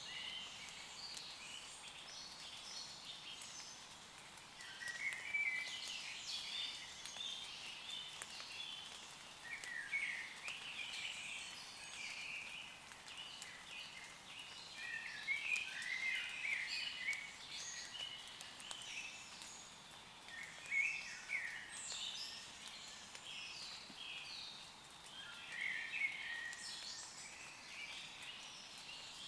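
Woodland birds singing, with short phrases of quick chirps and warbles every few seconds, over light rain pattering on leaves.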